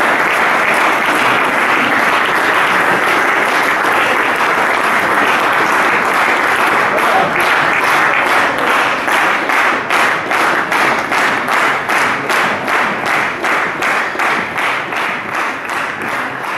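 Audience applause, a dense steady clapping that about halfway through turns into rhythmic clapping in unison, about two or three claps a second, and starts to fade near the end.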